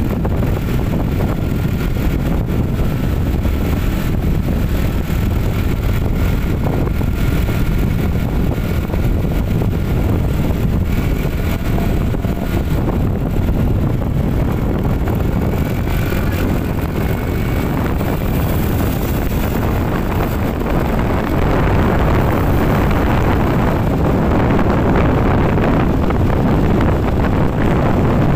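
Wind buffeting the microphone over the steady road and engine noise of a moving vehicle, with a faint whine drifting slowly in pitch; it grows a little louder in the last third.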